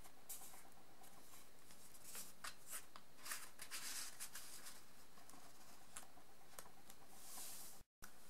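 Faint rustling and light ticks of cardstock being handled, with a soft sliding swish around the middle as a card is pushed into a paper pocket. The sound drops out briefly near the end.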